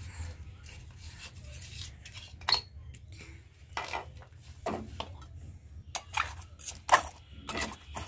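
Steel spoon clinking and scraping against a steel mixer-grinder jar and a steel plate as powdered sugar is scraped out over dried amla pieces: scattered, irregular clinks, the loudest about seven seconds in.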